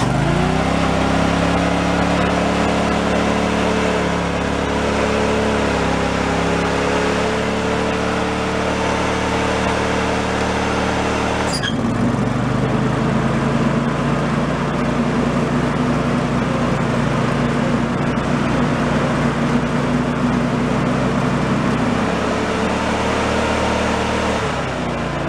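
John Deere LX178's 15 hp liquid-cooled Kawasaki V-twin running steadily at speed. About twelve seconds in there is a click as the mower deck is engaged, and the engine note drops and stays low. It climbs back up about ten seconds later. The engine is not holding RPM under load, which the owner suspects is a governor or carburettor linkage fault.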